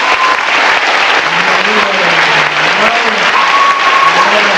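Audience applauding, with a voice rising and falling beneath the clapping.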